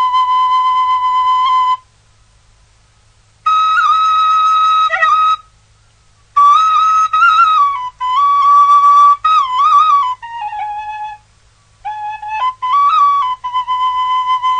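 Background music: a solo flute playing a slow melody of held notes with bends and trills, in phrases broken by short pauses.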